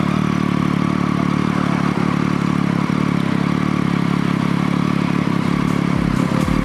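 Triumph Street Triple R's inline three-cylinder engine running steadily through a Two Brothers S1R exhaust with the dB killer removed.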